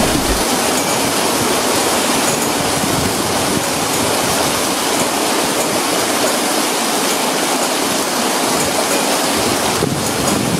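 Small waterfall pouring over rock ledges into a pool: a steady, even rush and splash of falling water.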